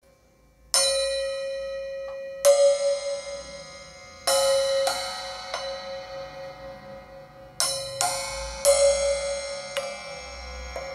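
Paiste hi-hat cymbals struck with drumsticks in slow, spaced single hits, about nine in all, starting about a second in. Each hit is left to ring and fade away with a steady bell-like tone.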